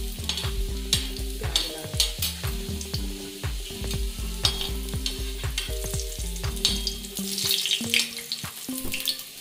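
Chopped garlic sizzling in hot mustard oil with cumin seeds in a kadai, stirred with a steel slotted spoon that scrapes and clicks against the pan. The garlic is frying on its way to turning golden.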